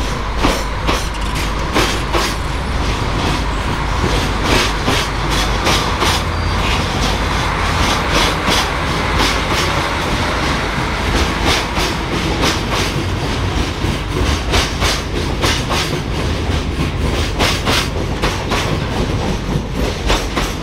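Container wagons of a long JR Freight train rolling past as it pulls out of the station, their wheels clacking over the rail joints in a steady run of clicks.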